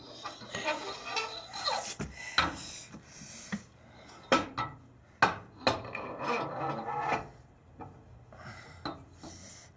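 Rear axle shaft being slid into the axle housing, metal scraping and rubbing along the tube with several sharp clanks as it is worked in to find the differential splines.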